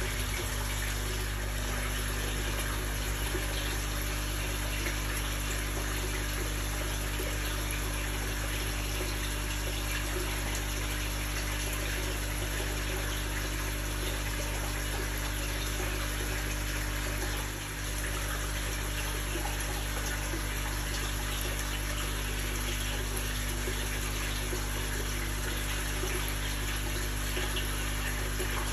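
Steady rush of running water over a low, even pump hum, from the pond's pump and water flow.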